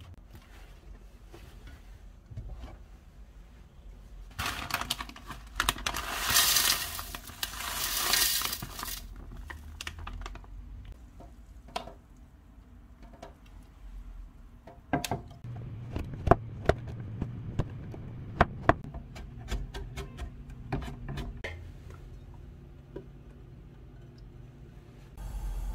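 Kitchen handling sounds: water poured for about four seconds into a plastic measuring cup to soak cut dried seaweed, then a run of sharp clicks and knocks of kitchenware being set down and handled.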